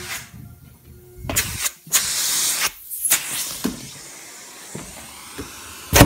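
MD Model B2 central vacuum running, heard as air rushing through its hose: a hiss that swells and fades, loudest about two seconds in, then settles to a fainter steady rush, with a few knocks.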